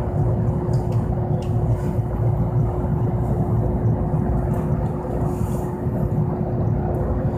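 A steady low rumble with a constant, even hum inside a Toyohashi Railway Mo780-series tram standing still.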